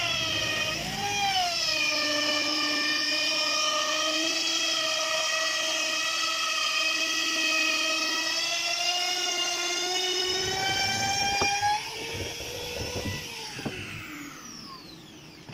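Electric trim router running at high speed while cutting a decorative groove into a wooden door panel, a steady high whine whose pitch dips briefly as the bit bites in. About twelve seconds in it is switched off and winds down with a falling whine, with a few light knocks.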